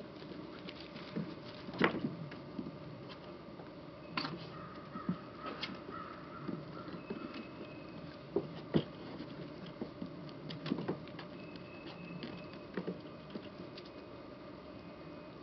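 Plott Hound puppies scampering and scuffling at play, paws pattering with scattered knocks and a few faint squeaks. The loudest knocks come about two seconds in and near nine seconds.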